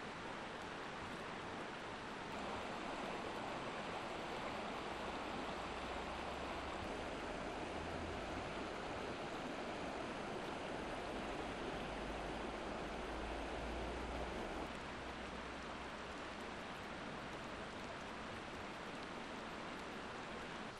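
A mountain river rushing over rocks, a steady watery hiss. It grows louder, with a low rumble underneath, for about twelve seconds in the middle.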